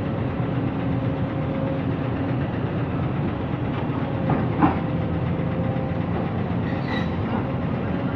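The heavy diesel engines of an excavator and a dump truck running steadily under load, with a short knock about halfway through.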